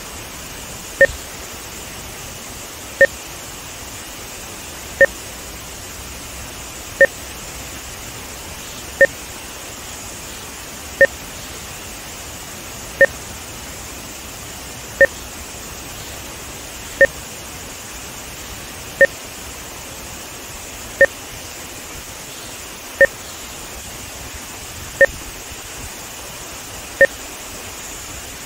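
Short two-tone electronic test beeps every two seconds, timing markers added for audio–video sync measurement, over the steady rush of water from the rapids and dam spillway.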